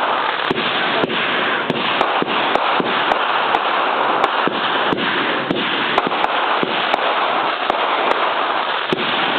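Consumer fireworks finale going off: a dense, continuous crackle with sharp cracks of breaking shells a few times a second.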